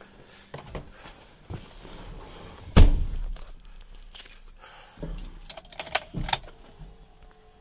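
Getting into a pickup's cab: a loud thump about three seconds in, then keys jangling and clicking at the ignition between about five and six seconds in.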